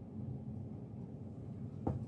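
Homestead Universal ceiling fan motor running on low speed in reverse, a steady low hum. A single short click comes just before the end.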